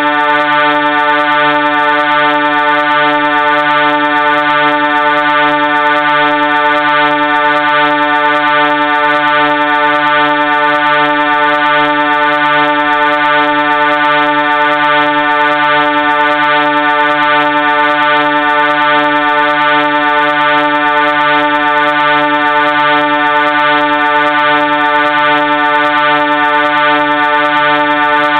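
Train horn sounding one long, loud, unbroken chord of several steady tones, held without a pause.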